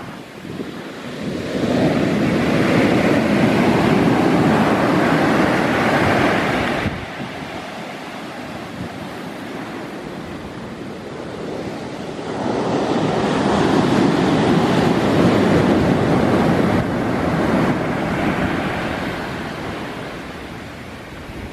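Big ocean waves breaking on the shore, two loud surges of surf about ten seconds apart, each rising, holding for several seconds and then falling away.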